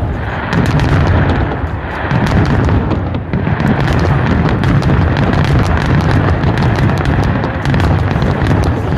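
Fireworks barrage: booms following one another with no pause, over a continuous low rumble, with many sharp cracks and crackles on top.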